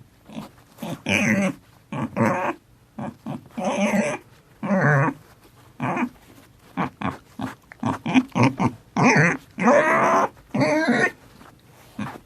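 A dog vocalizing in a run of about a dozen short, pitched barks and whines at irregular intervals, some with a growl.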